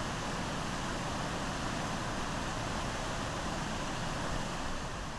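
Tygart River waterfall: water pouring over a rock shelf, a steady rushing roar.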